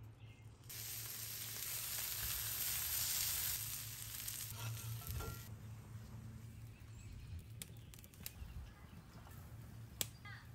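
Raw steak pinwheel sizzling as it is laid on a hot cast-iron flat-top griddle over charcoal. A steady hiss starts under a second in and stops about five seconds later, leaving a few faint clicks.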